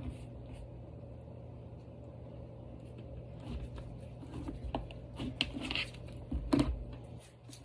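Light handling noises from slime and plastic slime cups and lids: scattered small clicks and rustles over a steady low hum, with a soft thump near the end.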